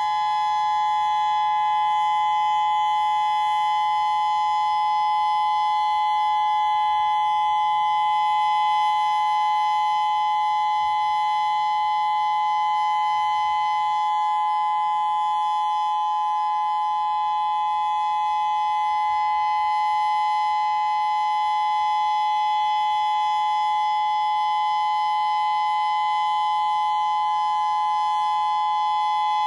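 Federal Signal Modulator II electronic warning siren sounding a steady alert tone: two close pitches near 1 kHz, held without any rise, fall or pulsing.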